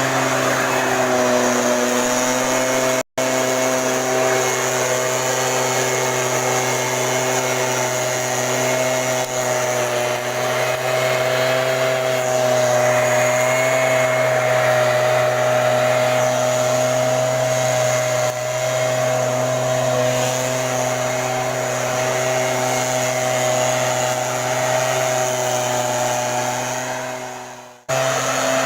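STIHL backpack mist blower's two-stroke engine running steadily at speed, its fan blowing hard. The sound cuts out for an instant about three seconds in and fades and cuts out again near the end.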